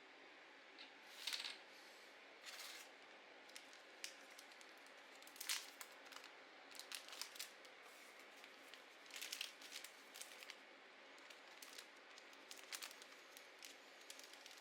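Paper being handled close up: an irregular string of short, crisp rustles and scrapes, the loudest about a second in and again about five seconds in.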